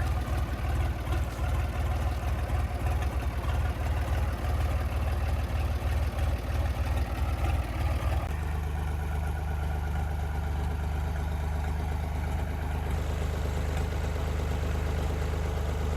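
An engine idling, uneven at first and settling to a steadier, even note about eight seconds in.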